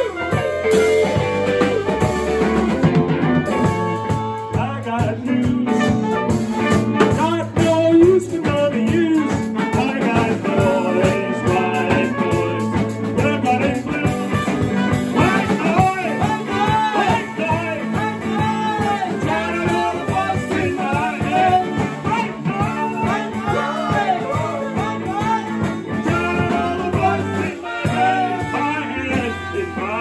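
Live band playing a rock song: drums, electric bass and guitar, with trumpet and alto saxophone playing melodic lines over them.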